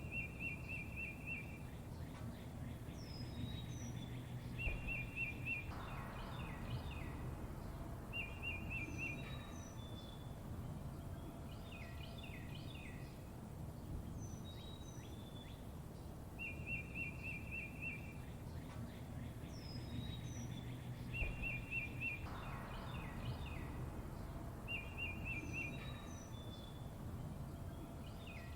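Songbirds chirping and calling: short rapid trills alternate with high, quick down-slurred chirps, over a steady low background rumble. The same sequence of calls comes round again about every 16 seconds, like a looped recording.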